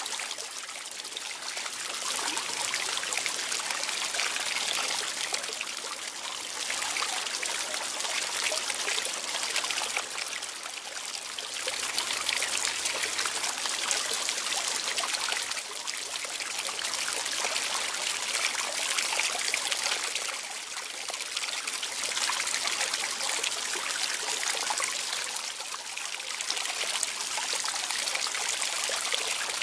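Water trickling and running steadily, swelling and easing every few seconds.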